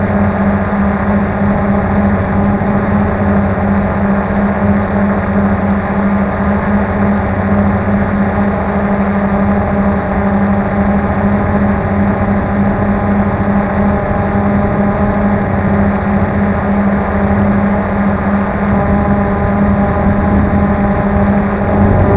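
Drone motors and propellers running with a steady, loud buzz as it hovers, picked up by the camera mounted on the drone itself. The pitch climbs a little and it gets louder near the end.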